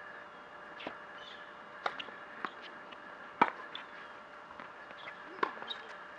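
Tennis rally on a hard court: a series of sharp knocks from racket strikes and ball bounces, a second or two apart, the loudest about halfway through.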